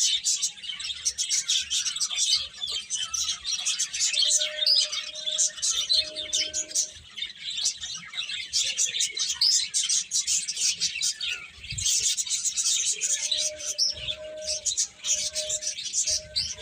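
Many small birds chirping rapidly and continuously. Several low, level cooing notes of about a second each come in a third of the way in and again near the end.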